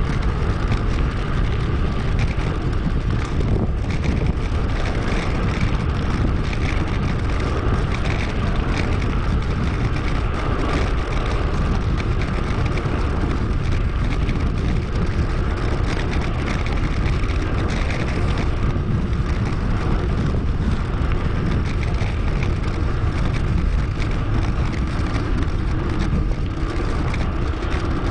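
Wind buffeting an action camera's microphone while riding a bicycle, a steady rushing noise heaviest in the low end, with tyre and road noise under it.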